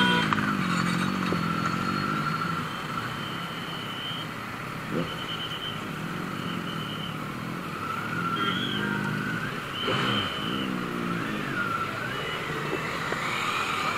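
Motorcycle engines pulling away at low speed, the engine note rising and falling as the throttle is blipped near the start and again about eight to eleven seconds in, over a steady idle and road rumble.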